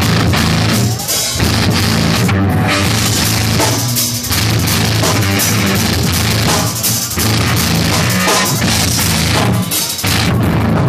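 Live rock band playing loud, with a drum kit and electric guitar, in a rough, poor-quality recording.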